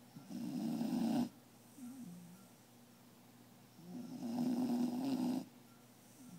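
Sleeping beagle snoring: two loud snores, the first about a second long and the second about a second and a half, some three seconds apart, with a short, softer breath between them.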